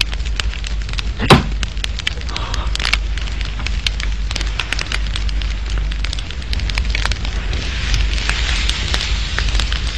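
Steady crackling noise dotted with many short clicks, with one sharp knock just over a second in; the crackle grows a little louder and brighter in the last few seconds.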